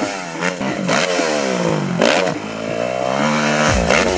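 Dirt bike engine revving, its pitch falling and rising several times, with a few sharp clacks.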